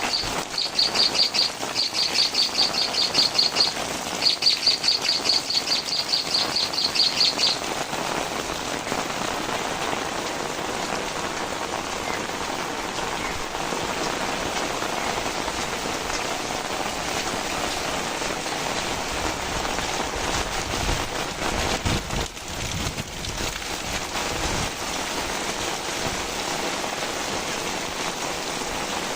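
Steady heavy rain falling. Over the first seven seconds or so a bird gives a rapid, high-pitched trill in four runs. About two-thirds of the way through comes a brief low rumble.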